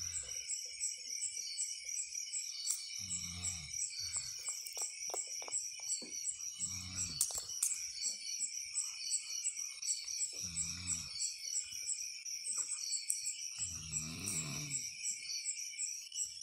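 Outdoor animal chorus: steady high chirping about four times a second, with a low croaking call four times, every three to four seconds.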